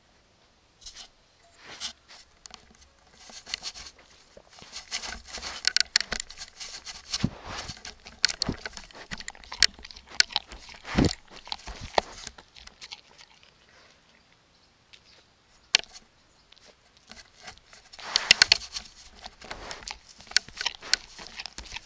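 An animal close to a trail camera's microphone, crunching and rustling in irregular bursts with sharp clicks, with a quieter spell about two-thirds of the way through.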